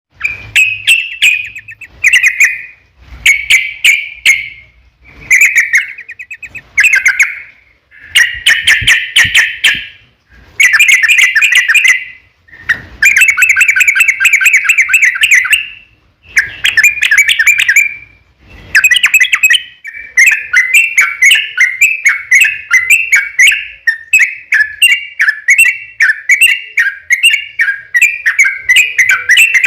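Yellow-vented bulbul (trucuk) singing loud bubbly, chattering phrases in short bouts with brief pauses. From about 20 seconds in this becomes one long unbroken run of rapid notes, the long rolling song that keepers call 'ropel panjang'.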